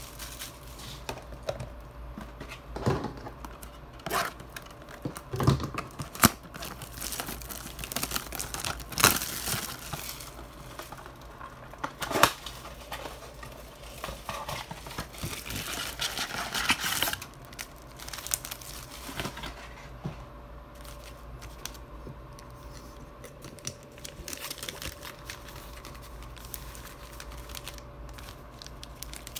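Foil-wrapped trading card packs crinkling and cardboard blaster box packaging tearing as the packs are taken out and stacked, with scattered taps and clicks. A longer stretch of rustling comes about halfway through.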